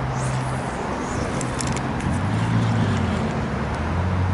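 Motor vehicle engine running: a low, steady hum that shifts down in pitch, with a few faint high chirps over it.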